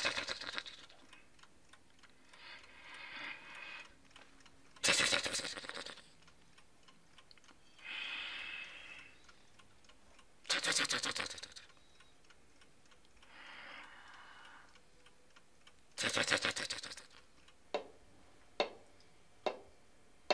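Mechanical alarm clock bell ringing in short bursts of about a second, loud ones about every five to six seconds with fainter rings between them. Near the end come a few sharp knocks, roughly a second apart.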